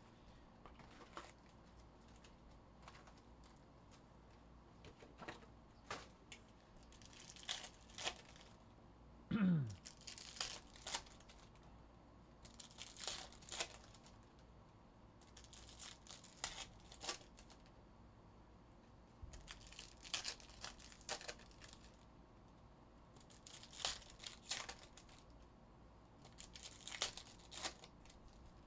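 Foil-wrapped trading card packs being torn open and their wrappers crinkled, in about seven short bursts a few seconds apart, with light clicks in the first few seconds. About a third of the way in a short falling tone, the loudest sound, cuts across.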